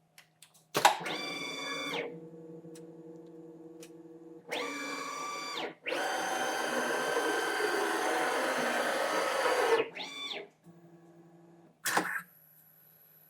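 CNC machine starting its program and moving its axes: several separate motor whines, each sliding up in pitch at the start and down at the end, over a steady low hum. A louder, noisier run of about four seconds comes in the middle, and there is a sharp click near the end.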